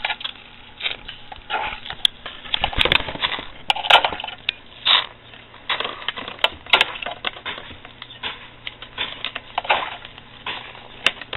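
Air bubbling out of a Sea-Monkey air pump's tube into a small tank of water: an irregular crackle of fizzing and popping, with scattered louder clicks.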